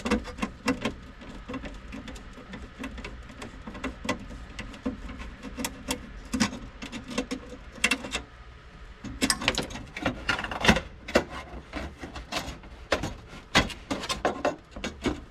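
Irregular light clicks and knocks of hands handling hardware, densest about ten seconds in, over a low steady hum.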